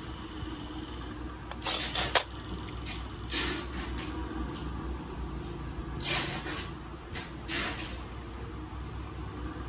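Small steel nail nippers working at the edge of a toenail: two sharp clicks about two seconds in, then three softer snips spread over the rest, with a steady low hum in the background.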